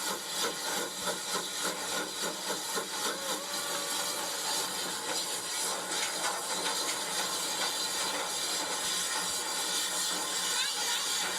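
Steam-locomotive sound effects for a Hornby Peckett W4 model saddle tank: rhythmic chuffing at about two to three beats a second for the first few seconds, then a steadier hiss of steam.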